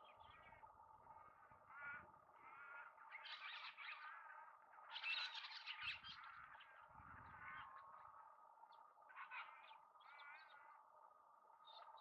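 Wedge-tailed eagle chicks giving a run of short, high begging calls one after another, loudest about halfway through.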